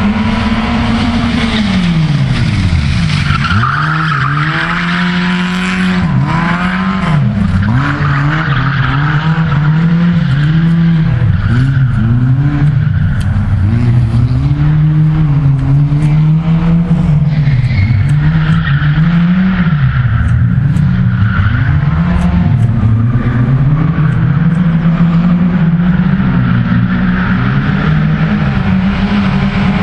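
Citroën AX race car's small four-cylinder engine revving up and falling back again and again as it drifts through the bends, with tyres squealing and skidding in long stretches.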